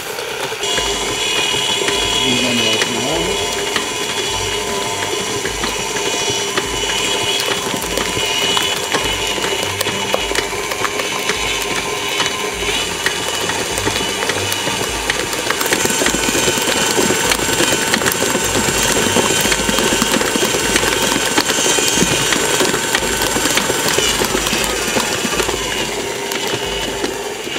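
KitchenAid Classic tilt-head stand mixer running steadily as its beater kneads a soft, buttery babà dough in the steel bowl, with a low pulse a little more than once a second.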